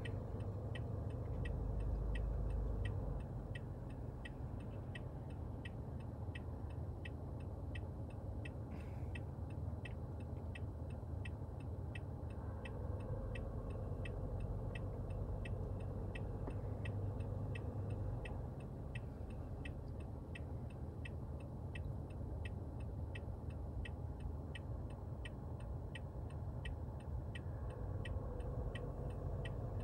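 A car's turn signal ticking steadily, about two ticks a second, over the low rumble of the car running, heard inside the cabin.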